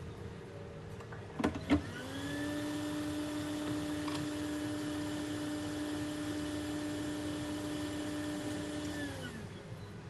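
Two clicks, then a small electric motor spins up, runs with a steady hum for about seven seconds and winds down near the end.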